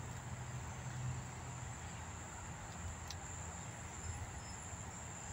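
Insects droning steadily at one high pitch over an even background hiss, with a low rumble that fades out about two seconds in.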